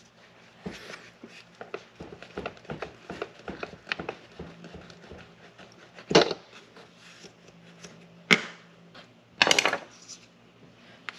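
Plastic and metal parts of a string trimmer's spool head handled by hand: scattered light clicks and taps, a louder knock about six seconds in, a sharp click after eight seconds and a brief rattle near the end.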